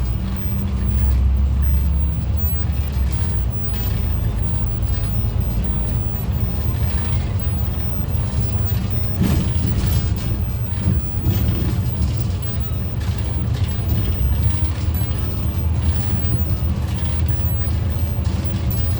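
City bus running along the road, with a steady low engine and road rumble. There are short rattles and knocks about halfway through.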